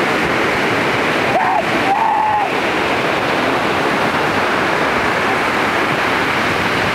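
Ocean surf washing onto a beach, a steady rushing of waves, with two short high calls heard briefly about one and a half to two and a half seconds in.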